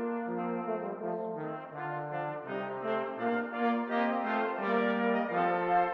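Brass ensemble of trumpets and trombones playing a piece in harmony, several held notes sounding together and changing about twice a second over a moving low part.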